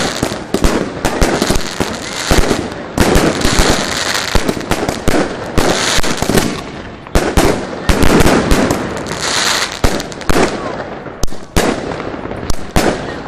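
Jorge consumer firework battery firing shot after shot: sharp bangs of bursting shells over a dense crackle, with the shots thinning out near the end as the battery finishes.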